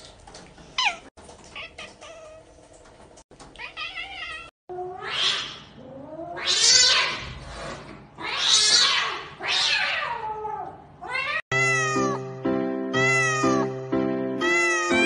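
Cat yowling in a standoff with another cat: about four long, loud calls that rise and fall in pitch. Music with steady sustained notes takes over about two-thirds of the way through.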